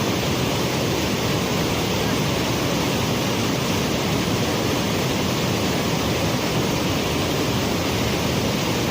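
Waterfall rushing: a steady, unbroken noise of falling water, the same level throughout.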